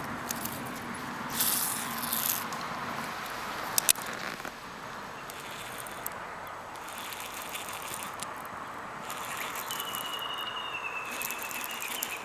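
A hooked bass jumps and thrashes at the surface on a topwater lure, splashing for about a second, then throws the hook. Two sharp clicks follow about four seconds in, and a thin high tone sounds for about a second near the end, over steady background noise.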